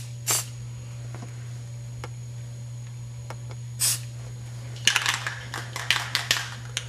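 Aerosol spray paint can giving short hissing bursts: one just after the start, another near four seconds, then a quick run of short sprays near the end.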